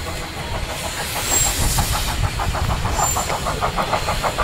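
Steam locomotives moving slowly, with a steady hiss of escaping steam and a fast, even pulsing from about a second in, over a low rumble.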